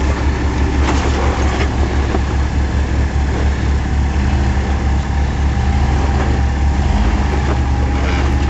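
Lifted Jeep's engine running low and steady as it crawls over boulders, with a couple of short knocks about a second in.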